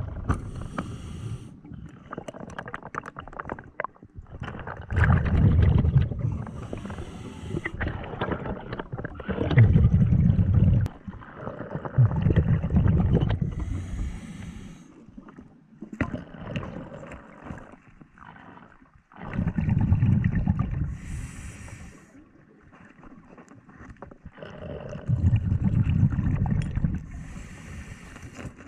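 Scuba diver breathing through a regulator underwater: slow repeating breaths, each a short hiss followed by a long stretch of exhaled bubbles, about every five to seven seconds.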